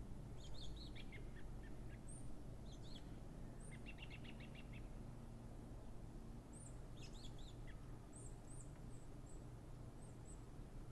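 Small birds chirping faintly, with scattered high chirps throughout, a quick run of repeated notes about four seconds in, and a burst of twittering around seven to nine seconds, over a steady low background rumble.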